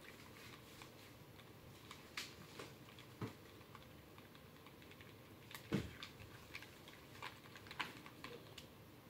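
Faint, irregular clicks and taps of a small spoon stirring slime in a small container, with one louder knock a little past the middle.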